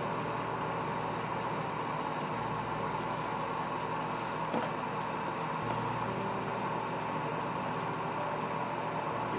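Steady electrical hum with faint, regular ticking. A low part of the hum steps up and down every three seconds or so.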